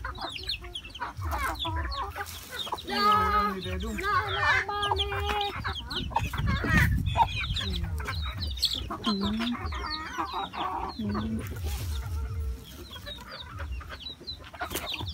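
A flock of chickens, hens and young chicks, clucking and peeping while they peck at scattered feed. Many short high calls run throughout.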